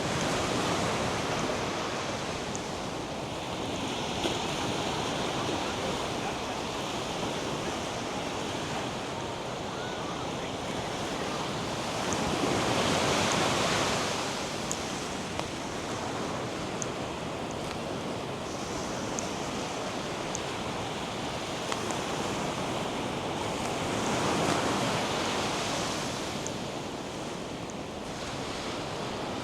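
North Sea surf: waves breaking and washing up the sand in a steady rush that swells louder three times, at the start, about twelve seconds in and about twenty-four seconds in.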